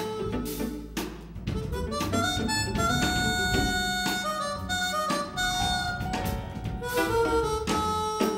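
Harmonica playing a jazz solo of held, sustained notes over a live band of piano, double bass and drums, with drum and cymbal hits.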